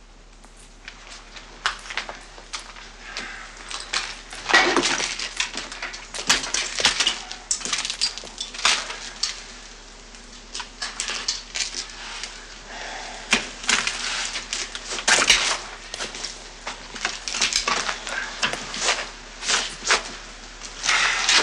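Glass and metal clinking, clattering and rattling in irregular bursts, as of objects being handled and taken apart.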